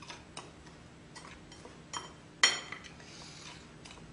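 Metal utensil stirring a dry breadcrumb-and-cornmeal coating in a ceramic bowl: light scraping and small taps against the bowl, with one loud ringing clink about two and a half seconds in.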